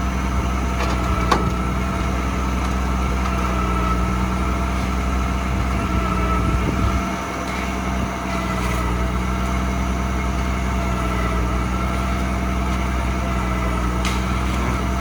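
Heavy diesel truck engine idling steadily, with a steady high whine over it and a few faint knocks.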